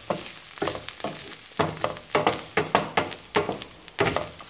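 Potato chips, peppers and onions sizzling in a non-stick frying pan while a wooden spatula stirs them, scraping and knocking against the pan in irregular strokes, about two or three a second.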